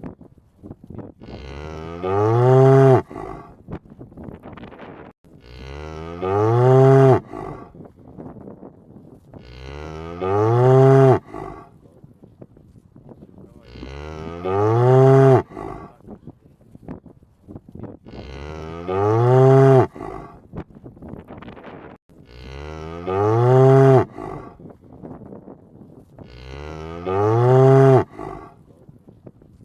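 Cow mooing: seven loud moos, evenly spaced about every four seconds, each about a second long and rising then falling in pitch.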